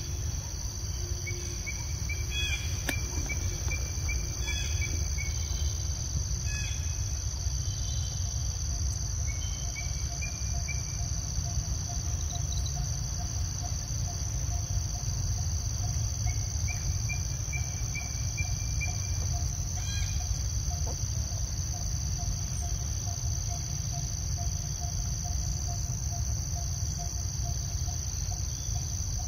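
Insects droning steadily in a high-pitched chorus, with short bird chirps coming in several bunches during the first third and again about two-thirds through, over a steady low rumble. A faint steady hum joins about a third of the way in.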